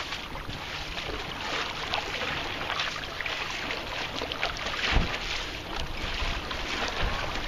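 A kayak paddle blade slapping and splashing on the water in repeated bracing strokes beside the kayak, with the loudest splash about five seconds in.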